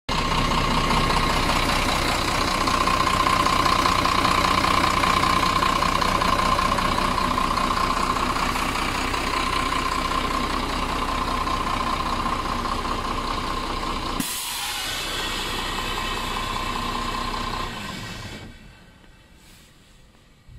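Sinotruk HOWO dump truck's 371-hp diesel engine running steadily, with a steady high whine over it. The sound changes abruptly about fourteen seconds in, then fades away over the last few seconds.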